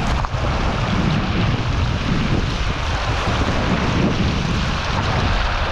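Fast, silt-laden mountain river rushing over stones close to the microphone, a steady loud roar of water, with wind buffeting the microphone.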